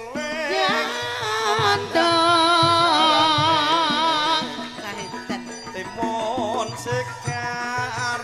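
A Javanese sinden sings with heavy vibrato into a microphone, the loudest part a long wavering held line about two seconds in. Drum beats from the accompanying kendang run underneath.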